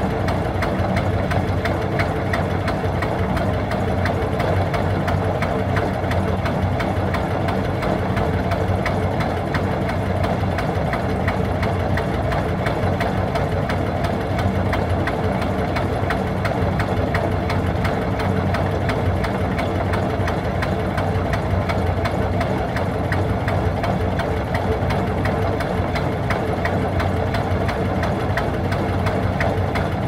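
Sabb Model G single-cylinder marine diesel running steadily at about 360 rpm, an even, unchanging knock of slow firing strokes.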